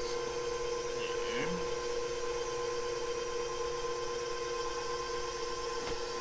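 KitchenAid stand mixer motor running steadily at speed 2, driving the pasta roller attachment, giving an even hum.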